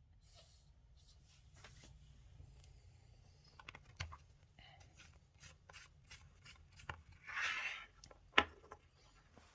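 Quiet rustling and scratching handling noises with scattered small clicks. About seven and a half seconds in there is a short breathy noise, followed by a sharp click that is the loudest sound.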